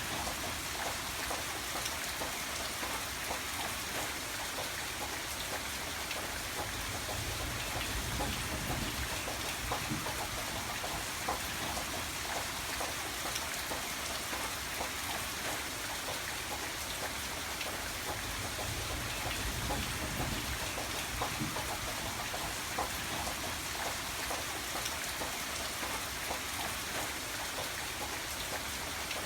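Steady rain falling, with many separate drops heard as small ticks.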